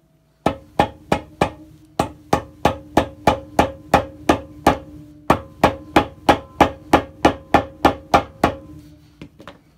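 Hammer tapping about three times a second on the steel centre tube of a Kenmore top-load washer, driving a new shaft seal further down into the tube. Each blow leaves the metal ringing, there are two short pauses, and a few light taps come near the end.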